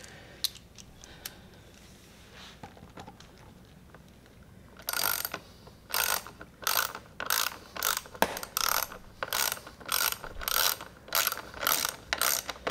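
Socket ratchet wrench clicking in quick, regular strokes, starting about five seconds in, as it turns a stainless steel lag bolt into a wooden drawer front.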